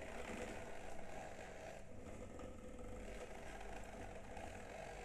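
Quiet, steady low rumble with a few faint held tones, part of an experimental ambient piece for ocean drums, organ pipes, tubes and gongs.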